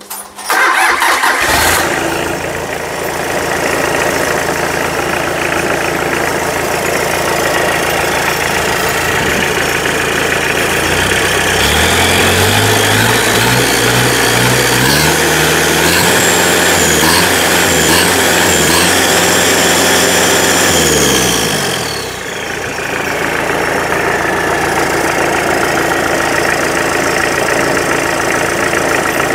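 Mitsubishi 4D56 four-cylinder diesel engine on a stand, starting and catching right away, then idling. About eleven seconds in it is revved up by hand and held at high revs with a high whistle over the engine note for several seconds. Around twenty-two seconds in it drops back to idle.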